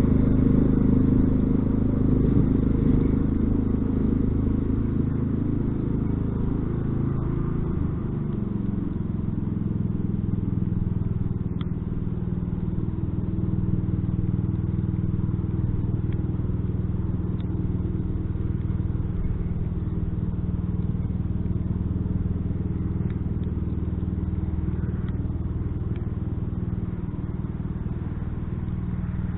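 Small engine of an old Sears Craftsman lawn tractor running steadily under a snow plow. It is louder at first and eases off over the first several seconds as the tractor moves away, then keeps running at an even level.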